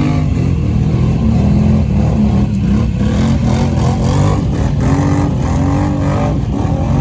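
Side-by-side UTV engine running hard and revving up and down, its pitch rising and falling repeatedly as the machine is worked back and forth over rough ground.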